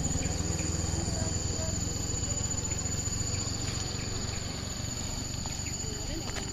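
A motorcycle engine running as the bike rides away uphill, its low, even putter fading. Insects buzz steadily in two high tones throughout.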